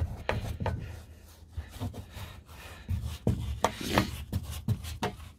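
Small paintbrush scrubbing and dabbing liquid wood hardener into soft, rotted wooden shed planks: a string of irregular short brushing strokes and taps against the boards.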